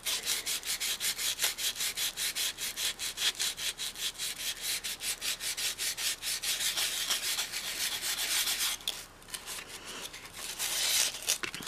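Sandpaper rubbed by hand in quick back-and-forth strokes over a doll's head coated with a dried, soft filler, making a fast scratchy rasping several strokes a second. The strokes pause briefly about three-quarters of the way through, then start again.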